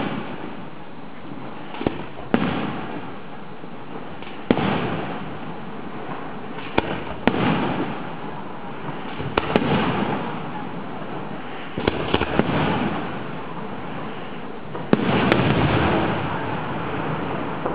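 Aerial fireworks shells bursting in the sky: a sharp report every couple of seconds, each followed by a lingering rumble. The loudest and longest burst comes near the end.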